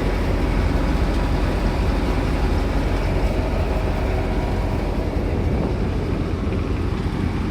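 Old combine harvester running: a steady, even engine rumble.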